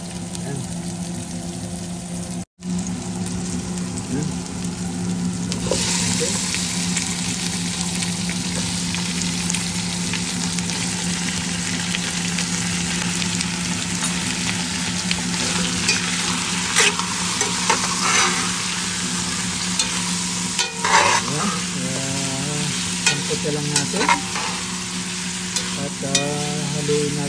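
Onion and garlic sizzling in hot oil in a stainless pot; about six seconds in the sizzle grows much louder as raw chicken wings go into the pot. From about the middle on, a cooking utensil clacks and scrapes against the pot as the chicken is stirred, over a steady low hum.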